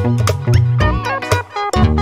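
Background music with quick plucked notes over a bass line.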